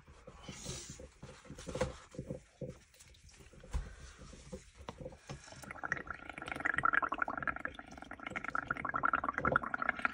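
Bubbling from air blown through a straw into a tub of bubble-painting ink, building a froth of bubbles. It starts as scattered gurgles and pops, then about six seconds in turns to a steady, louder bubbling.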